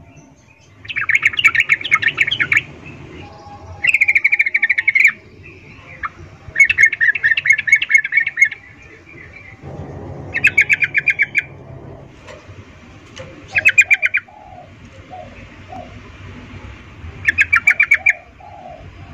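Female yellow-vented bulbul giving her chattering breeding call to a male: six bursts of rapid repeated notes, each lasting a second or so, a few seconds apart.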